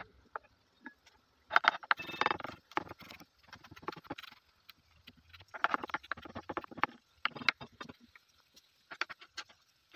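Chef's knife mincing garlic on a wooden cutting board: several quick runs of blade knocks against the wood, with short pauses between them.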